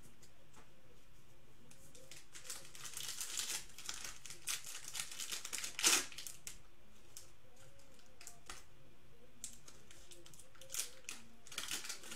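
A foil trading-card pack wrapper crinkling as it is handled and torn open, in scattered bursts of rustling with one sharp rip about six seconds in, then more crinkling near the end.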